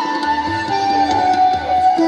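Instrumental background music: a melody of held, plucked-string notes over a steady low drum beat.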